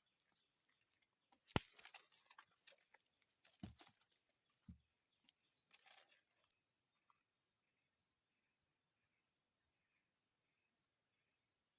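Quiet outdoor background with a sharp click about a second and a half in and two dull thumps a second apart around four seconds in; from about six and a half seconds on, faint insect chirping repeating about twice a second.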